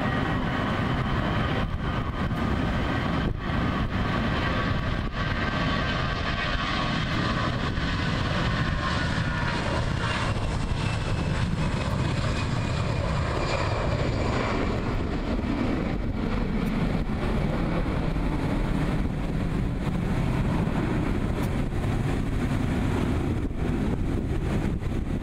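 Airbus A321's twin CFM56 turbofan engines at takeoff thrust as the airliner rolls down the runway, lifts off and climbs away. A high engine whine runs over a steady deep rumble and fades about ten seconds in, leaving mostly the rumble.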